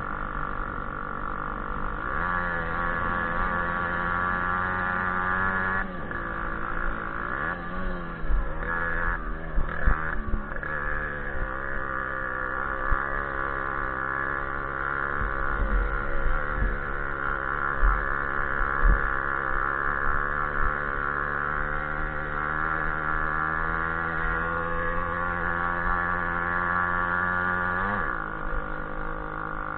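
Small moped engine running under load while riding a bumpy grass track. Its pitch dips and picks up again several times as the revs change, then falls away sharply near the end.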